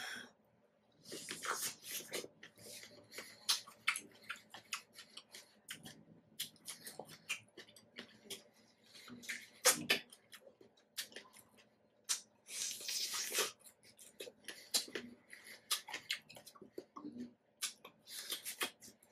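Close-up mouth sounds of eating a juicy peach: irregular wet smacks and clicks of biting and chewing, with a longer slurp about two-thirds of the way through.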